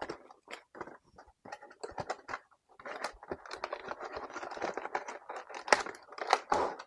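A plastic toy fireworks space gun and its packaging being handled: scattered sharp clicks and knocks, then from about three seconds in a denser crinkling rustle dotted with clicks.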